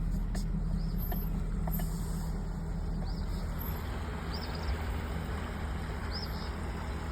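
A vehicle engine running steadily with a low hum, under a haze of road or wind noise, with a few faint squeaks.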